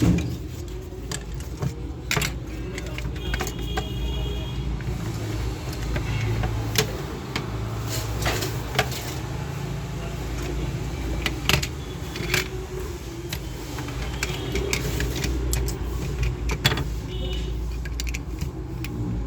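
Scattered clicks and light rattles of small metal and plastic parts being handled, over a steady low rumble.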